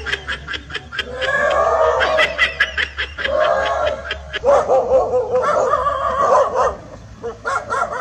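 Dog barking and yelping in repeated, agitated calls, alarm barks at a toy tiger on a remote-control car.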